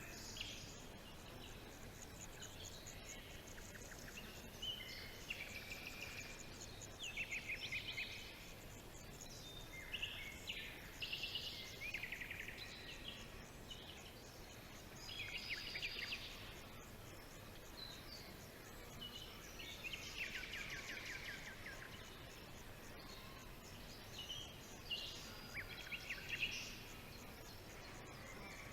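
Several songbirds singing in a forest: scattered chirps and quick trills, overlapping at times, over a steady background hiss.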